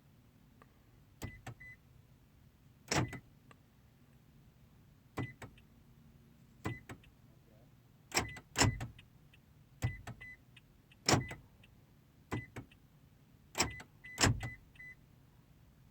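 A 2014 Prius V's electrics clicking over and over, a sharp click every second or two, several with short high beeps. The car has an electrical fault and won't start.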